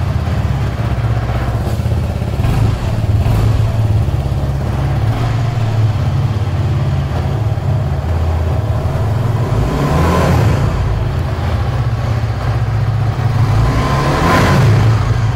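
Suzuki Gixxer SF 250's single-cylinder, oil-cooled four-stroke engine idling through its dual-barrel exhaust. It is blipped up in revs twice, about ten seconds in and again near the end.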